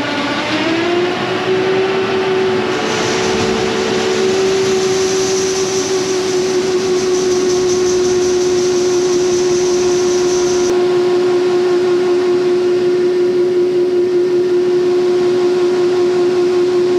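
Grain-cart tractor engine running at high, steady revs with a steady whine. Its pitch climbs in the first second and then holds, and a high hiss joins in about three seconds in and cuts off after about eleven seconds.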